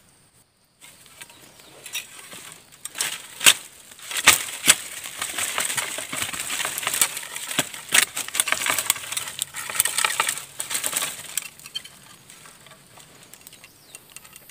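Dry bamboo branches and leaves rustling and crackling as someone pushes into a wild bamboo thicket, with several sharp cracks among them. The crackling is densest through the middle and dies down near the end.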